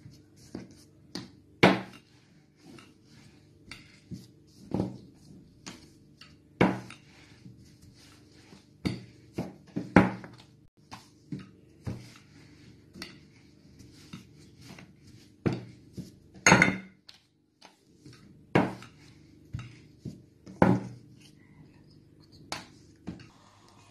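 Rolling pin knocking and clattering on a wooden board while dough is rolled out thin, with a sharp knock every second or few.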